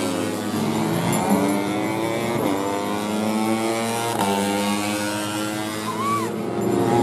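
Four-stroke 150cc underbone racing motorcycle engines revving hard on track. Their pitch drops sharply and climbs again, once about two and a half seconds in and again about four seconds in.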